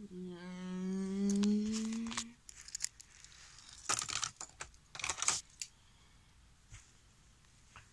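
A held note, slightly rising in pitch, lasting about two seconds, then scattered clicks and two short rustling clatters as a plastic toy car is handled and set down on a plastic toy train track.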